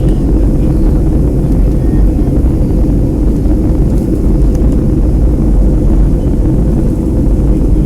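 Steady, loud rumble of a Boeing 757's engines and the airflow, heard from inside the passenger cabin during the descent to land, with a faint steady hum running through it.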